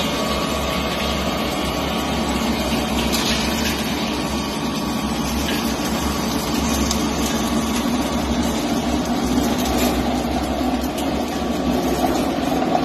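Small electric feed pellet mill running under load, its motor and die making a steady machine drone while pellets are pressed out.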